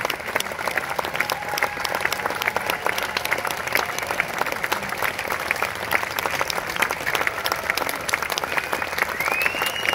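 Audience applauding, a dense, even clatter of many hands clapping.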